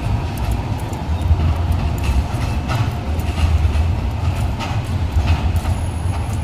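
Low-floor street tram, a Euskotren CAF Urbos, passing on embedded rails and moving away: a steady low rumble with a run of sharp wheel clicks over the track joints. A thin high whine comes in near the end as a bus draws near.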